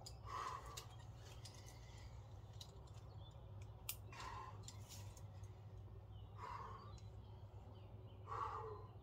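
A crow cawing four times, short harsh calls a couple of seconds apart, over a low steady rumble. A single sharp click comes a little before the fourth second.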